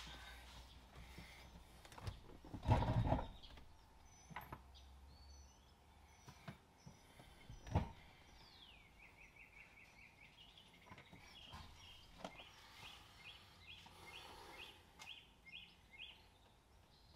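Scattered knocks and one heavier thump about three seconds in as a truck seat is worked onto its mounting bolts and won't seat. From about halfway a bird sings: a falling whistle, then a run of quick repeated chirps.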